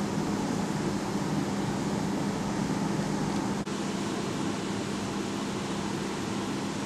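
Steady ventilation hum with an even hiss, constant room tone, with a momentary dropout about halfway through.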